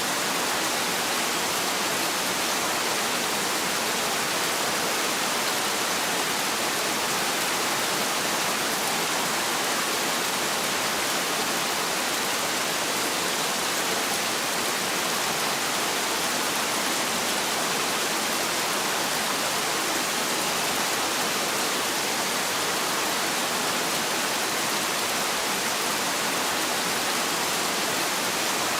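Heavy rain falling steadily: a dense, even hiss with no thunder and no separate drops or claps standing out.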